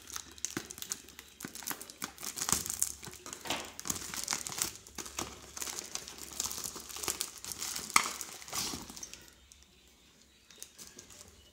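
Plastic bubble wrap crinkling and rustling with many small crackles as it is pulled off a bottle. It dies down about nine seconds in.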